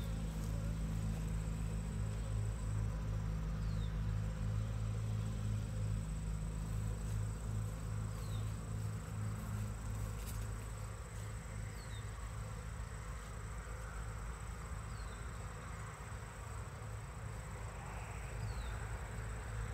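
Honeybees buzzing around the hives as a steady low hum, with a thin high steady insect trill over it and a short, faint falling chirp every second or so.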